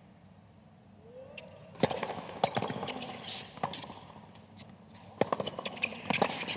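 Tennis ball being struck by rackets and bouncing on a hard court during a rally: quiet for the service toss, then the serve's sharp pop about two seconds in, followed by a string of irregular hits and bounces.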